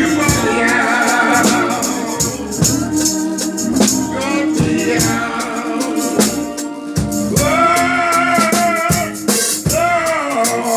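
Live gospel music: a woman singing into a microphone over a drum kit with cymbals and organ, with steady shaken percussion.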